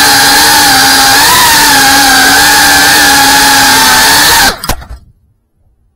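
GEPRC CineLog35 3.5-inch FPV drone's motors and propellers whining at a steady, slightly wavering pitch, then cutting off abruptly about four and a half seconds in.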